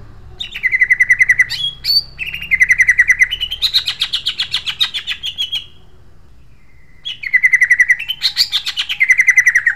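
Male greater green leafbird (cucak ijo) singing a harsh, sharp song: fast runs of repeated notes, quick upswept whistles and a rattling trill. It comes in two bursts with a pause of about a second and a half between them.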